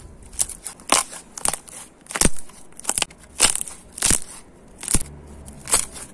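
A series of short, crisp crunches, about nine of them at a slightly uneven pace of one every half to three-quarters of a second.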